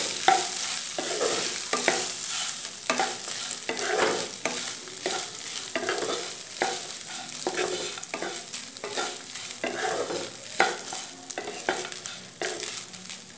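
A spatula stirring and turning cooked rice in a hot non-stick kadai, with repeated irregular scraping strokes against the pan over a faint, steady sizzle of oil. This is the boiled rice being mixed into the fried spices, nuts and dal for lemon rice.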